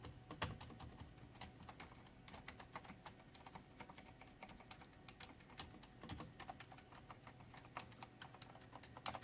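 Filco mechanical keyboard with Cherry MX switches typed on at medium force: faint, quick key clicks, several a second.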